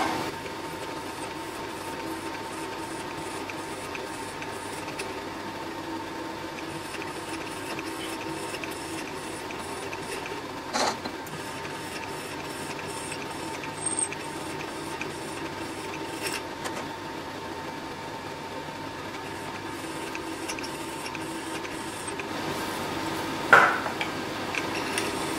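Small milling machine's spindle running steadily as a twist drill bores into a metal plate, a constant motor hum with a steady whine. Two short knocks break it, one about eleven seconds in and a louder one near the end.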